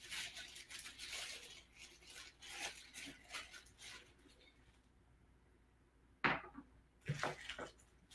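Clear plastic packaging bags crinkling and rustling as small parts are handled, in faint scattered bursts, with a quiet gap in the middle and a louder handling noise about six seconds in.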